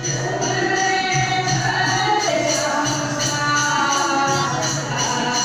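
Sikh devotional kirtan: a voice singing over music with a steady, evenly spaced jingling percussion beat.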